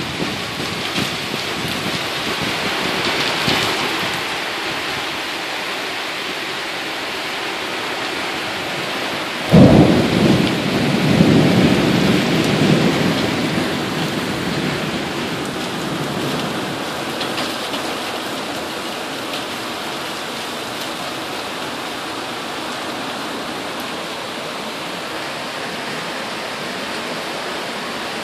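Steady rain in a tropical storm, with a sudden clap of thunder about ten seconds in that rumbles on for a few seconds before fading.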